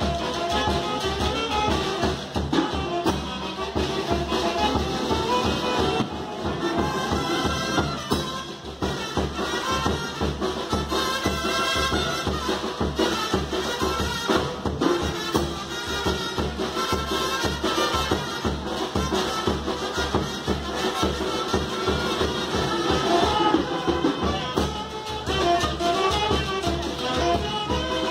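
Brass band music with a steady beat, played for a traditional feathered-headdress dance.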